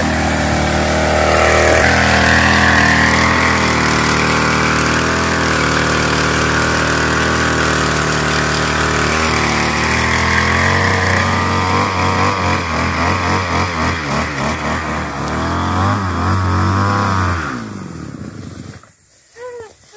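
Small engine of a knapsack power sprayer running steadily at working speed while spraying; its pitch wavers in the second half, and the sound falls away sharply near the end.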